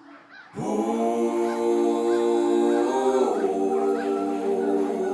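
Intro music of sustained, choir-like chords that come in about half a second in and change chord about three seconds in, with faint short chirps repeating above them.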